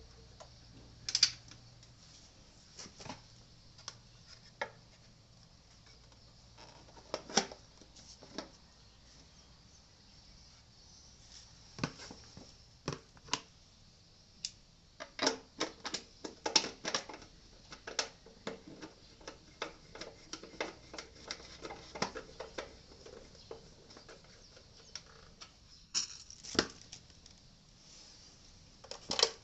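Irregular clicks and knocks of hand work on the Suzuki Birdie 50cc moped: parts and tools being handled as the new battery is fitted and the bike put back together, busiest in the middle stretch.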